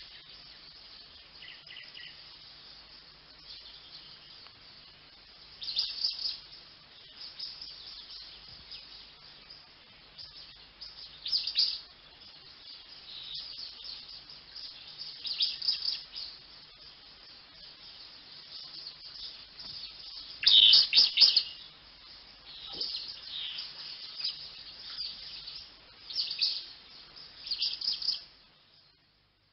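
Finches singing: a series of short, high twittering song bursts, the loudest cluster about two-thirds of the way in, stopping shortly before the end.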